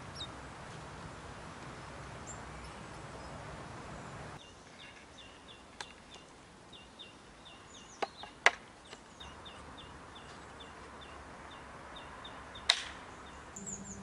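A small songbird repeating a short high chirp about three times a second, in runs with pauses, over a steady outdoor hiss. A few sharp clicks cut in, the loudest about two-thirds of the way through and near the end.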